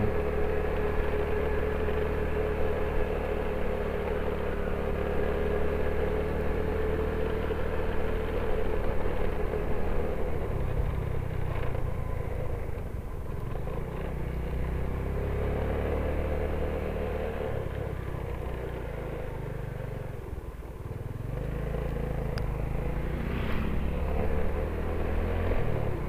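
Motorcycle running at road speed: a steady engine hum with road noise. The level dips briefly about twenty seconds in, then builds again toward the end.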